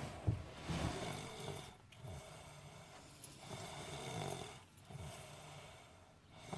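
A sleeping boy snoring, with slow, drawn-out breaths separated by short pauses.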